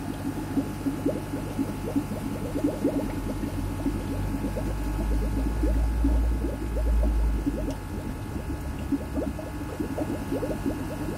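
Aquarium equipment running: a steady hum under a rapid, irregular crackle of bubbling, with a low rumble swelling for a few seconds in the middle.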